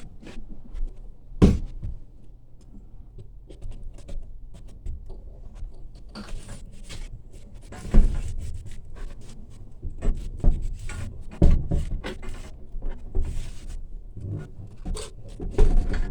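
Irregular knocks, thumps and scrapes at uneven intervals, the sharpest about eight seconds in and again about three seconds later.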